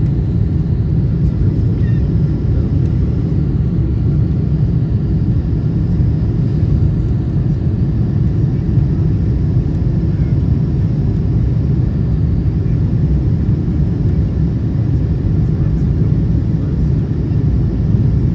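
Steady low rumble of engine and airflow noise inside the cabin of a Boeing 747-8 on final approach with its flaps extended.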